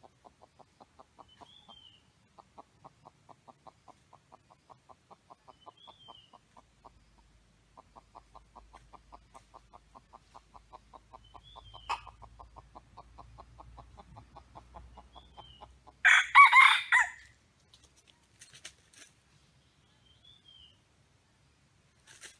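Red junglefowl rooster crowing once, loud and short, about two-thirds of the way through. Beneath it runs a faint, fast, even pulsing trill, with a faint high chirp every few seconds.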